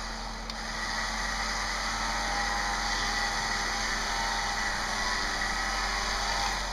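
Recon 10.5K electric winch running under load, a steady whine as it hauls the Jeep up the ledge.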